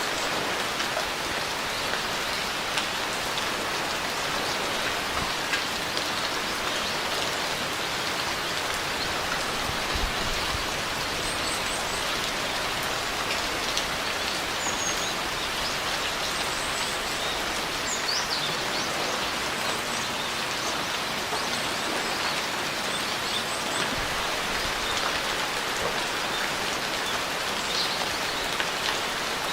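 Steady rain falling on a surface, with individual drops heard as small ticks.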